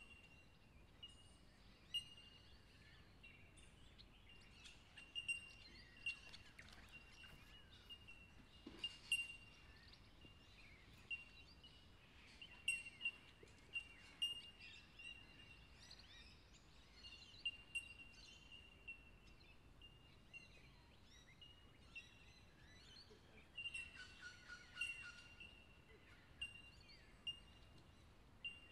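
Birds chirping and calling in short, irregular notes, some sliding in pitch, over a faint steady background hum of outdoor ambience.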